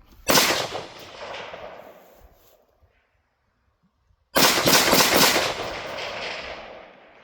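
Gunfire in two strings: a quick burst of shots just after the start, then a faster run of several shots about four seconds in, each string trailing off in a long echo.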